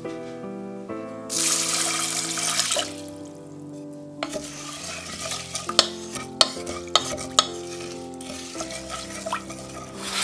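Water poured from a glass measuring jug into a stainless steel saucepan of dry brown rice, a brief rush about a second in. A wooden spoon then stirs the rice and water, with sharp knocks against the pan.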